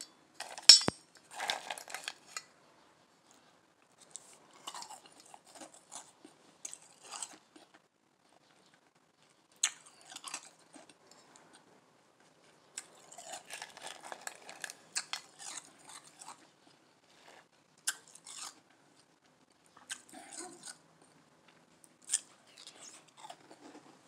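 Soft ice being crunched and chewed in the mouth, in irregular bouts of crunching separated by short pauses, with a few sharp clicks among them.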